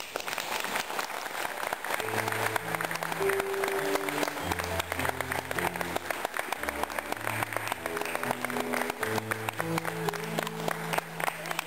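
Audience applauding, with instrumental music of held chords and bass notes coming in about two seconds in.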